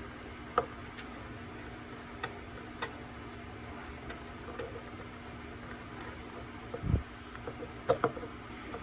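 Door lock actuator's threaded shaft being unscrewed by hand from its housing, giving scattered light clicks a second or two apart and a soft thump near the end, over a steady background hum.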